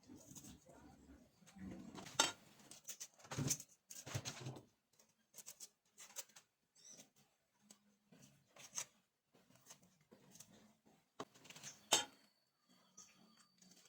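Scattered clicks and knocks of kitchen utensils and cookware being handled, with a few sharper clatters about two, three and a half, four and twelve seconds in.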